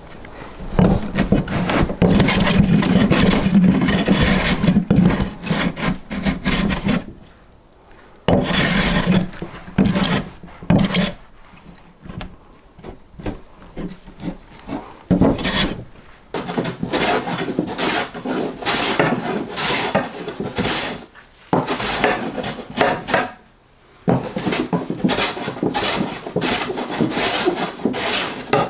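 Wood being rasped or sanded by hand in bouts of scraping strokes, with short pauses between the bouts.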